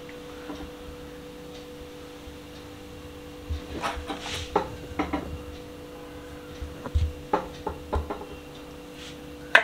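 Soft knocks and rubbing on a cutting board as the outer membrane is peeled off a mutton kidney by hand, coming in scattered clusters from about three and a half seconds in, over a steady low hum.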